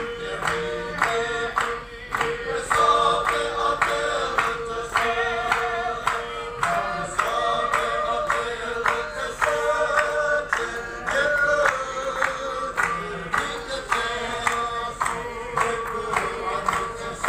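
Congregation singing a worship song together with many voices, over a steady held tone and a regular rhythmic beat.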